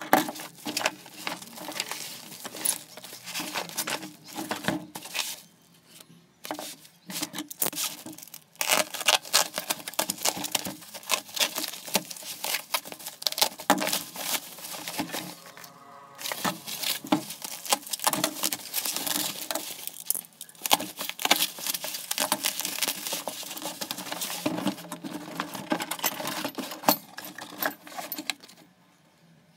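Bubble-wrap packaging crinkling and crackling as hands pull it off a cardboard box: a dense, irregular run of sharp crackles with brief lulls about five seconds in and around the middle.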